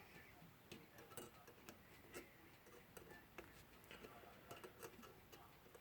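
Faint, irregular small metallic clicks of a threaded balance cup being screwed into an alarm clock movement's plate, testing the fit of its thread.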